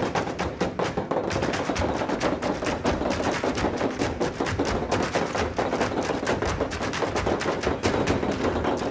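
Fast, dense clattering taps, many a second, like Irish step-dance hard-shoe footwork, over music.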